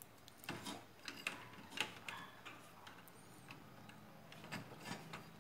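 Faint, scattered clicks and light taps of hands handling cables and a plastic power connector inside a metal PC case.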